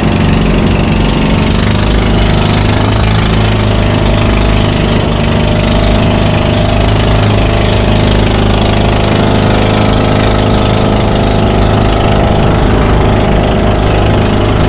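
Small motorized fishing boat's engine running steadily under way, one even, unbroken drone.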